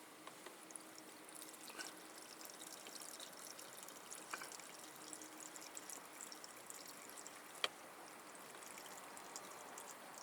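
Water being poured into a cooking pot of cut vegetables, a faint, steady trickle, with one sharp click about three-quarters of the way through.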